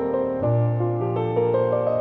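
Background piano music: a melody of changing notes over a held bass note.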